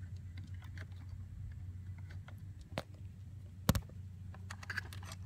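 Small clicks and taps of car wiring and plastic parts being handled by hand, with one sharp click a little past halfway and a quick run of clicks near the end, over a steady low hum.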